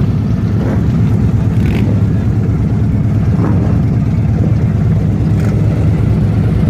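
Large-displacement motorcycle engine idling steadily.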